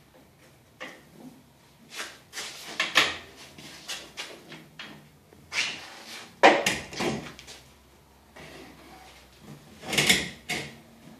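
A long metal straightedge knocking and scraping against a brick wall as it is lifted and set upright, in a string of irregular clatters and rubbing sounds, the loudest about halfway through and near the end.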